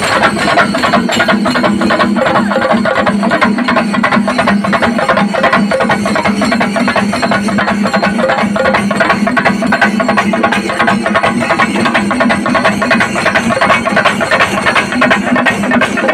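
Kerala chenda melam: a troupe of chenda drums beaten fast with sticks, with ilathalam hand cymbals clashing along, in a dense, loud, unbroken rhythm.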